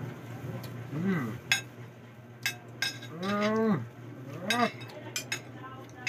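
Spoons and forks clicking on plates during a meal, with three low drawn-out vocal calls like a hummed 'mmm'. The middle call is held for nearly a second.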